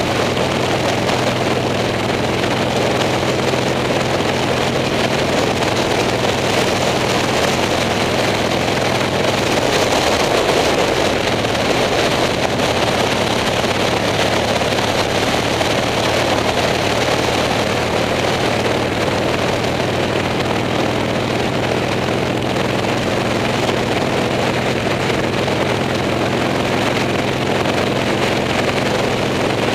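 Motorcycle engine running steadily at a constant road speed, heard from the handlebars, with wind rushing past the microphone.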